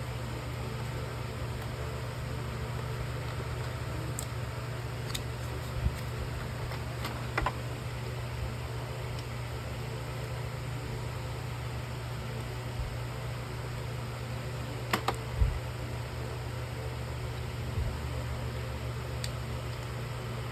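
Steady low mechanical hum with a few light clicks and taps scattered through it, two of them close together about fifteen seconds in.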